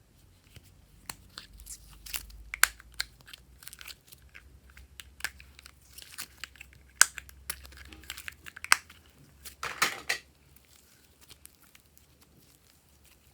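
Slime being squeezed and stretched by hand, giving irregular sharp crackles and pops, with a denser crackling burst about ten seconds in before it goes quiet.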